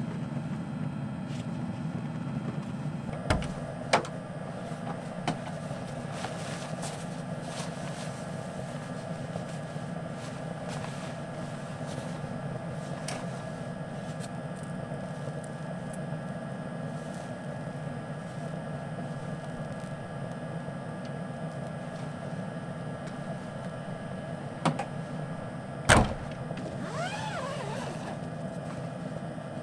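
A steady low mechanical hum from a running motor, with a couple of sharp knocks about three seconds in and a loud thump near the end as the Land Rover Defender 90's rear door is shut.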